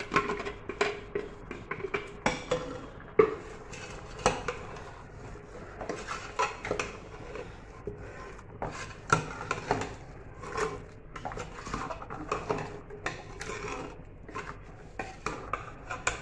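A steel ladle clinking and scraping against the sides of an aluminium pressure cooker while stirring chunks of mutton and tinda in a wet masala, in irregular knocks several times a second.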